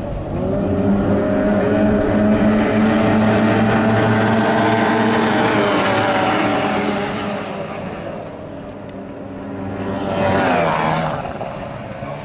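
Racing outboard motors on several stock hydroplanes running at full throttle as the pack passes close by, loud and steady, fading away after about 7 seconds. A second pass comes just after 10 seconds, its pitch falling as the boat goes by.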